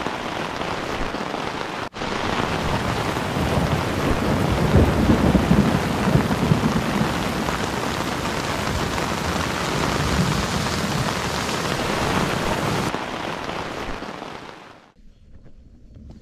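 Heavy rain pouring during a thunderstorm, with low thunder rumbling loudest around five seconds in. The storm sound stops suddenly about fifteen seconds in.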